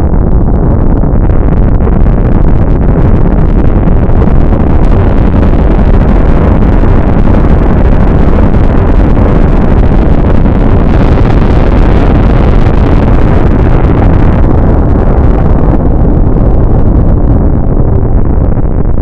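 Loud, steady rumbling noise with no pitch or rhythm, heaviest in the low end.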